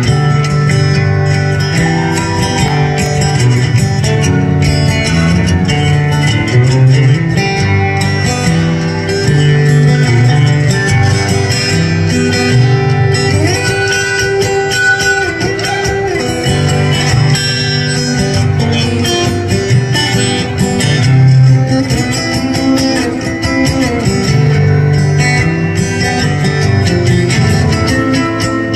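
Solo acoustic guitar playing an instrumental passage: picked and strummed notes over sustained low bass notes.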